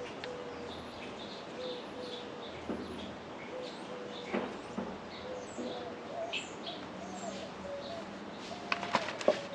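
Birds chirping with short, repeated calls, joined by a few sharp clicks and knocks, most of them near the end.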